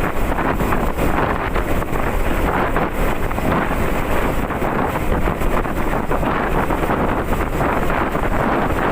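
Wind buffeting the microphone of a moving 2016 Honda CB150R motorcycle, a steady rushing noise with the single-cylinder engine and road noise running underneath.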